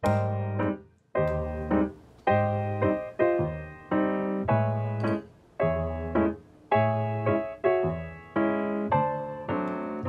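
Background piano music: chords struck about twice a second, each fading away, with a short break about a second in.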